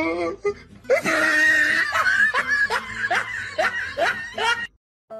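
A person laughing: a loud outburst about a second in, then a run of short rising snickers about three a second, cut off abruptly near the end.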